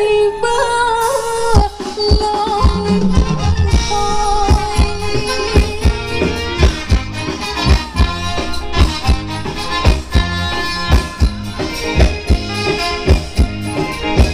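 Live band playing Thai ramwong dance music through loudspeakers. A held melody line opens it, and a steady drum beat comes in about a second and a half in, with roughly one strong beat a second.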